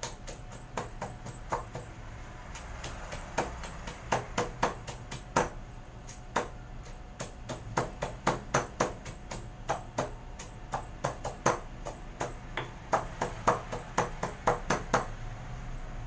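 Stone pestle pounding garlic and chilies in a granite mortar: a run of uneven knocks, about two a second.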